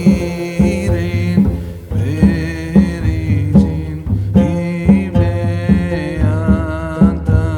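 Music with a steady beat of low drum strikes under sustained pitched melody lines.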